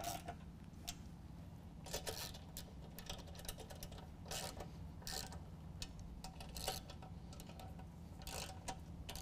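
9/16 ratchet wrench clicking in short runs, several times, as the bolts on the snow plow blade's top brackets are tightened.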